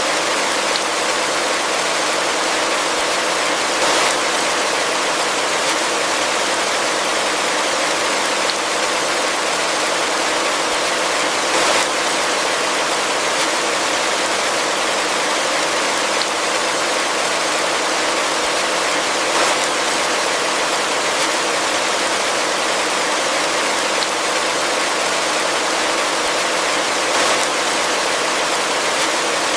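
Heavy rain falling steadily, a dense even hiss, with a brief slight swell every seven or eight seconds.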